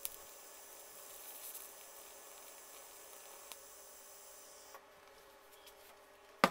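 TIG welding torch arc hissing steadily while welding a steel frame, stopping about five seconds in.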